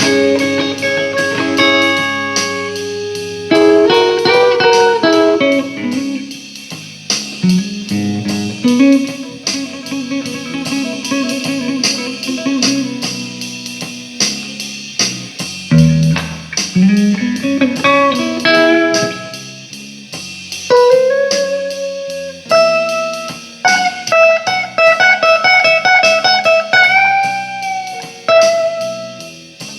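Guitar playing a bluesy lead line of single picked notes, with held notes wavering in vibrato and several notes bent upward. Near the end comes a run of fast repeated notes.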